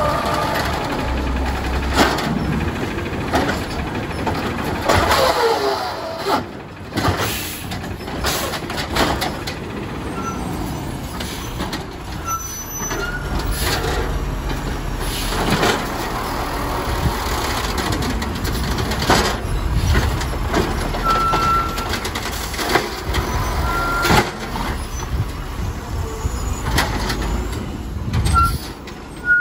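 Peterbilt garbage trucks with Amrep automated side-loader arms at work: the diesel-like rumble of the truck engines, rising and falling as the hydraulic arm lifts and tips carts into the hopper, with repeated knocks and bangs of the carts and arm.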